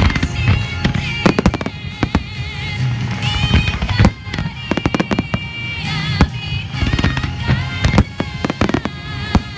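Fireworks bursting in quick, irregular succession, many sharp bangs, over music with a singing voice.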